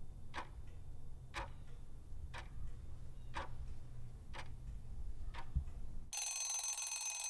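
Quiz countdown-timer clock ticking about once a second over a low hum. About six seconds in, the ticking gives way to a steady, many-toned ringing sound.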